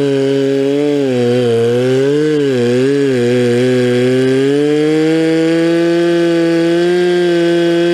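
Stihl 046 Magnum two-stroke chainsaw with a milling chain running under load while ripping a log lengthwise into a slab. The engine speed dips and wavers several times in the first half, then holds steady.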